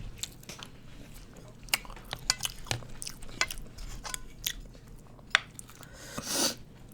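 Close-miked chewing: wet mouth clicks and smacks at an irregular pace, with a brief rushing breath-like sound about six seconds in.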